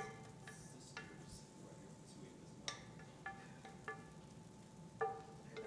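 Light clinks of a stainless steel saucepan and utensil against a ceramic bowl, about six over the few seconds, each ringing briefly, as mushroom sauce is scraped from the pan onto pasta.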